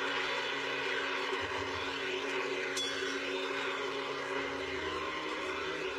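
Steady crowd noise filling a boxing arena, an even din with no voice standing out.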